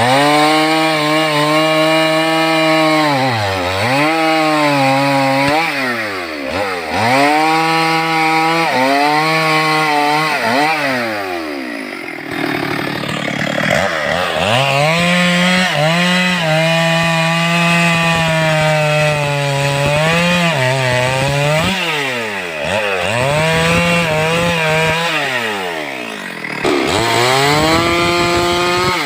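Stihl MS 382 two-stroke chainsaw running at high revs, repeatedly dropping back toward idle and revving straight up again. There is a spell of rougher, less even running partway through.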